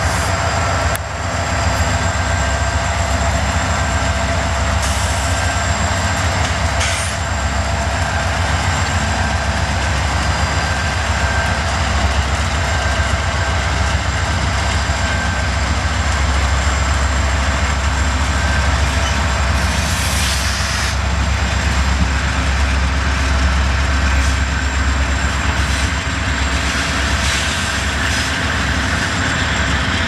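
Norfolk Southern freight train led by an EMD SD60E diesel locomotive pulling out, with a steady low rumble of engine and rolling wheels on rail.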